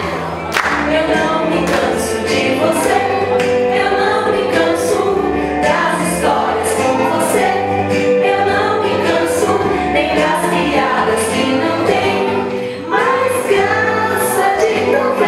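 A song playing: voices singing a melody together over instrumental backing with a steady beat.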